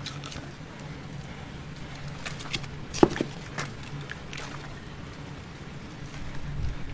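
Scattered knocks, clicks and scrapes of knife and handling work on a fish, with one sharp knock about three seconds in, over a steady low hum.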